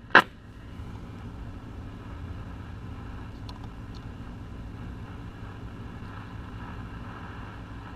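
Zenith Trans-Oceanic G500 tube shortwave radio with no antenna hooked up, giving a steady low hum and faint static as it is tuned across the bands. One sharp click at the very start and two faint ticks about halfway.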